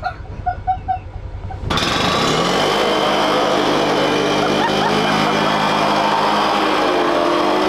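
A side-by-side UTV's engine comes in suddenly about two seconds in, revving up and then held at high, steady revs as it strains to tow an ice fishing house trailer, its tires spinning in the snow. Before that there is a little light knocking.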